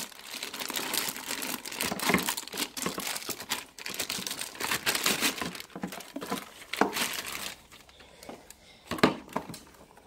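A thin plastic packaging bag crinkles and rustles as a battery charger in it is handled and unwrapped. It dies down after about seven seconds, followed by a couple of short knocks near the end.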